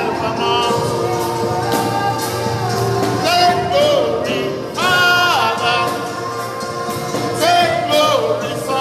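Gospel worship singing over instrumental backing, with sung phrases rising and falling over steady held notes.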